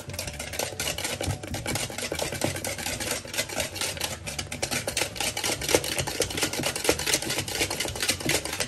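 A wire whisk beating cake batter by hand in a bowl, rapid clicking and scraping strokes, several a second, without a break.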